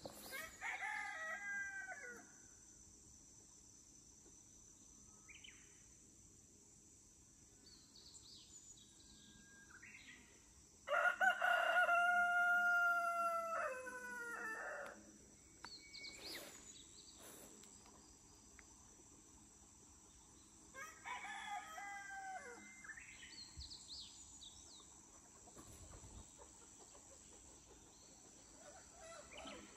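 A rooster crowing three times. The longest and loudest crow comes about eleven seconds in, between two shorter, fainter ones near the start and about twenty-one seconds in.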